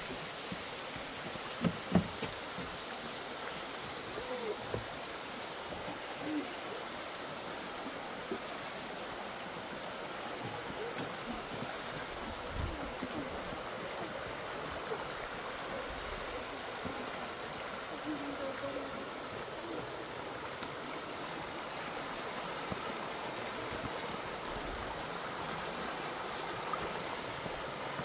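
Steady rushing of water falling at the Dreimühlen waterfall. There are two sharp knocks about two seconds in.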